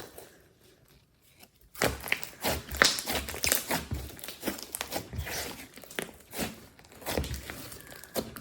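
Glossy slime worked by hand, kneaded and stretched, making irregular sticky crackles and small pops. They begin after a quiet second or so.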